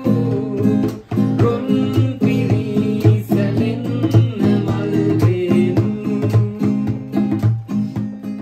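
Acoustic guitar music with a steady rhythm.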